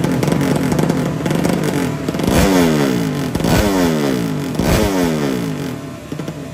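A 200 cc horizontal-cylinder drag bike engine with an open exhaust runs at a rough fast idle. About two seconds in, it is blipped three times roughly a second apart, and the revs fall away after each blip.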